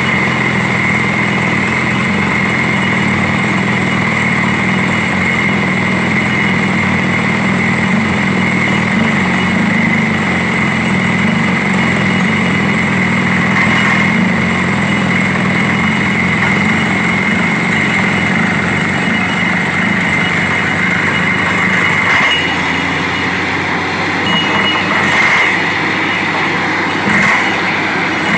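Borewell drilling rig running steadily, with a constant low hum and a high whine. The hum eases slightly near the end, with a few short knocks.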